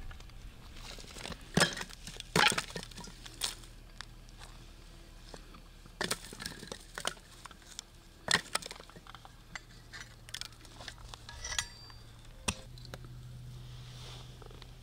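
Irregular knocks and clinks of cooking utensils, dishes and a wooden board during food preparation, with a faint steady low hum underneath.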